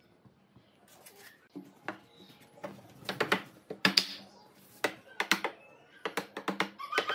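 Irregular sharp knocks and clicks, like wooden parts and tools being handled and tapped on a workbench. They come loudest and thickest between about three and five and a half seconds in.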